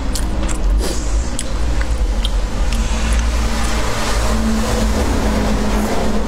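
Eating sounds: a few sharp clicks early on, then noodles slurped up from chopsticks in the last few seconds, over a steady low rumble.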